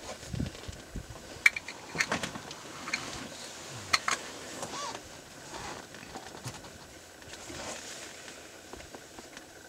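African wild dogs feeding on an impala carcass: scattered sharp cracks and crunches of bone and flesh being torn, loudest about a second and a half in and again about four seconds in.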